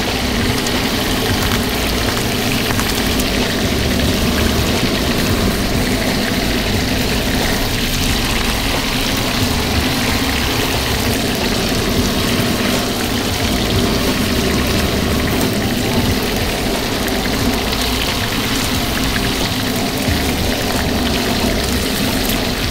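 Handheld kitchen gas torch burning with a steady rushing noise as it sears skin-on blue mackerel fillets, over the sizzle of the olive oil in the frying pan.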